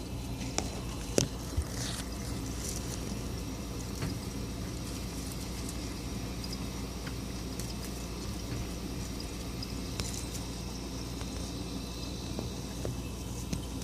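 Steady low hum of a running refrigerator, with a few sharp clicks in the first two seconds and a single tick about ten seconds in.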